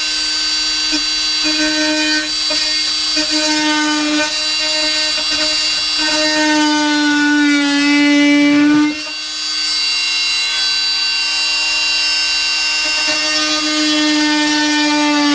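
High-speed electric power tool cutting into a wooden panel, running with a steady high-pitched whine whose pitch sags under load around the middle and dips briefly near the end.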